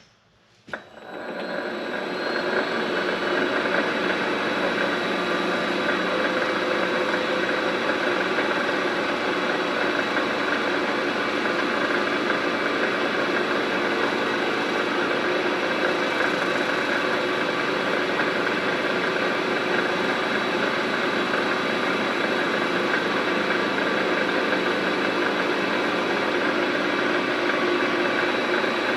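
Vevor MX 400 mini lathe starting up about a second in, then running steadily with its motor and spindle turning.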